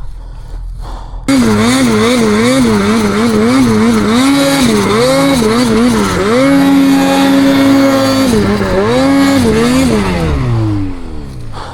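Snowmobile engine revved hard in quick repeated throttle blips, its pitch rising and falling several times a second. It holds high for a couple of seconds, blips again, then winds down with a falling pitch near the end. The engine jumps suddenly loud about a second in.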